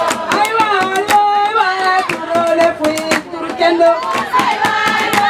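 Women singing a melody led by one voice, over a steady beat of sharp percussive strikes.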